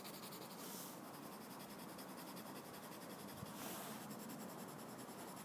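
Faint scratching of a Winsor & Newton coloured pencil shading on paper, laying a light green over a blue swatch to test how the colours blend. It has two brief louder stretches of strokes, about half a second in and again about three and a half seconds in.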